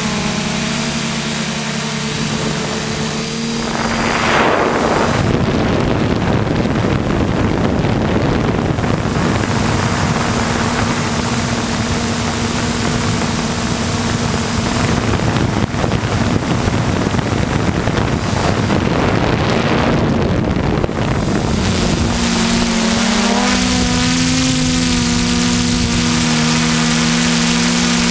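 Hexacopter's six electric motors and propellers humming in flight, with a rush of wind on the onboard microphone through much of it. From about twenty-two seconds in, the motor pitch wavers up and down.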